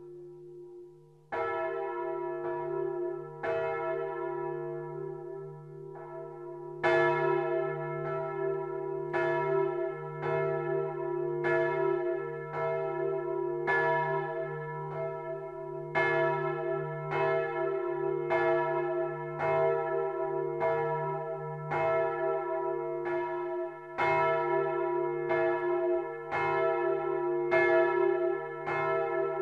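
The Domtoren's church bells swung by hand in full peal, heard close up inside the bell chamber. A few separate strokes sound over a steady deep hum at first; from about seven seconds in the strokes come thick and overlapping, roughly one to two a second.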